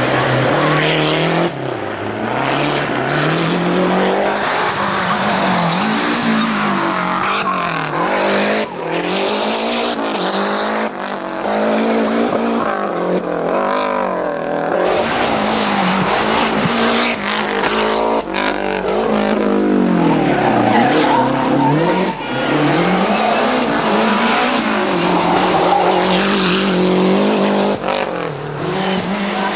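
Group A Lancia Delta rally car's turbocharged four-cylinder engine driven hard on a stage, its note climbing and dropping again and again as the driver accelerates, shifts gear and lifts for corners.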